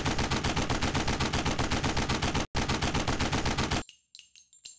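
Rapid automatic gunfire sound effect, about five shots a second, with a brief break about two and a half seconds in. The firing stops just before the end, leaving a few light metallic clinks.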